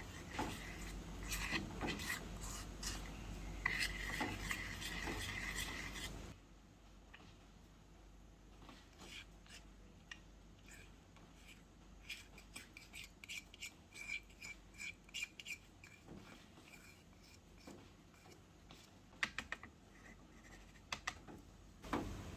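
Kitchen utensils scraping and clicking against dishware in short irregular strokes. The sound cuts abruptly about six seconds in to a quieter stretch of scattered light clicks and scrapes.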